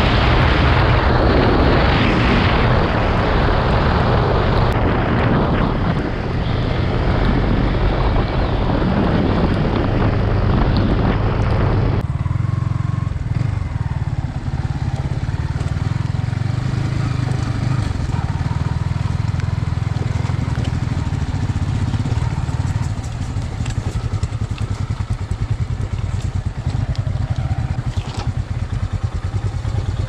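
Motorcycle running with heavy wind noise over the microphone while riding. About twelve seconds in, the sound switches abruptly to a quieter, low, even engine running at low revs.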